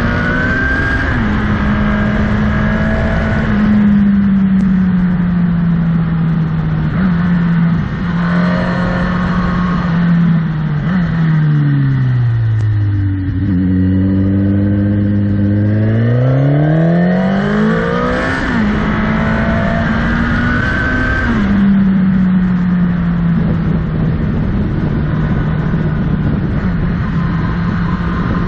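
Motorcycle engine under way, its note stepping up and down with throttle and gear changes. About halfway through, the pitch sinks low for a few seconds as the bike leans through a tight bend, then climbs back as it accelerates out. Wind rush on the microphone runs throughout.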